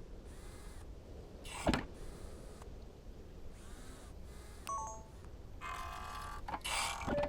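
Designed sci-fi sound effects over a low steady hum: a sharp click a quarter of the way in, a few short electronic chirps near the middle, then a buzzing mechanical whir and another sharp click near the end.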